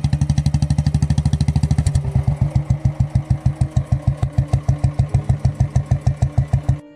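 Motorcycle engine idling with a fast, even thumping beat that slows a little about two seconds in and cuts off suddenly near the end.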